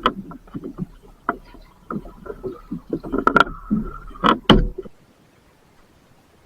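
Irregular knocks, clunks and rattles of fishing gear being handled on a small boat, with a faint thin whine through the middle, stopping abruptly near the end.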